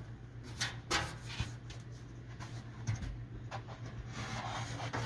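A Sprinter headliner shelf being handled and set into its ceiling brackets: a few scattered light knocks and clicks, then rustling handling noise, over a steady low hum.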